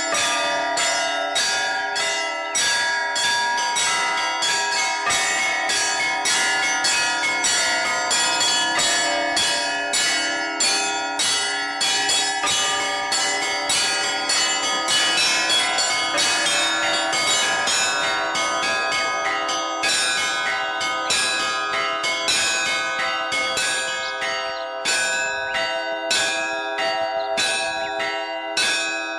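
Orthodox church bells rung in a continuous peal: several bells struck in quick succession, about three or four strokes a second, their tones overlapping and ringing on between strikes.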